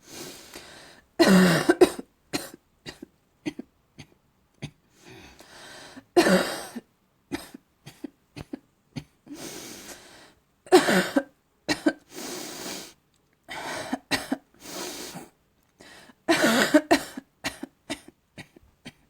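A person coughing in repeated fits. Four loud bouts come about five seconds apart, with short, sharp coughs in between.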